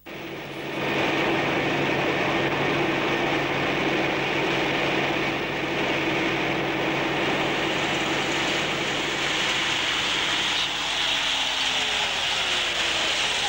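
Motorcycle with sidecar running steadily along a wet road, a constant engine drone with a hiss over it, coming up to full level about a second in; the engine note falls toward the end as it nears the barrier and slows.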